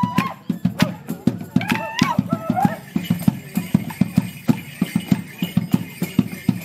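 Border Morris dance music: a squeezebox tune over a steady drum beat, with the dancers' sticks clacking and their boots stamping in time.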